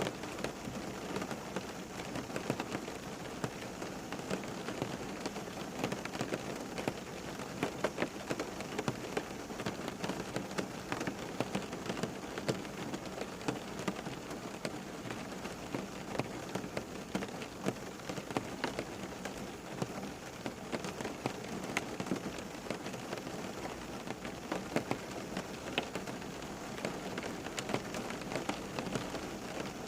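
Steady rain falling, with many distinct drops pattering on a surface.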